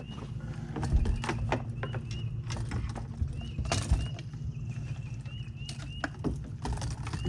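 Scattered knocks and clatter of fishing gear being handled in a boat, over a steady low rumble of wind on the microphone. A short rising chirp repeats faintly in the background, in runs of two or three.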